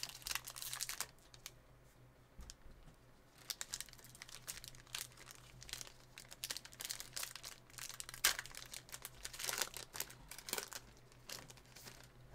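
Foil trading-card pack wrappers crinkling and tearing as Mosaic football card packs are opened and the cards are handled, in short irregular crackles. A faint steady low hum runs underneath.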